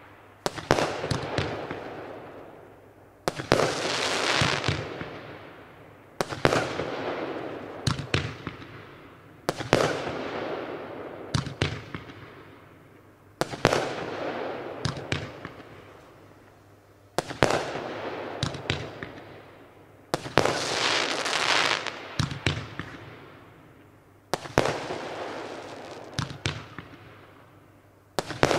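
Consumer firework battery (cake) shooting shots into the sky about every three to four seconds, nine in all. Each starts with a sudden bang, followed by a hiss with scattered pops that fades over two to three seconds.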